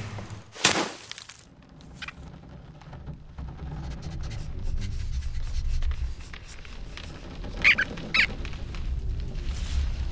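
Cartoon sound effects: a sharp whoosh-like hit under a second in, then a low rumble that builds through the middle, and two short high squeaks about two seconds before the end.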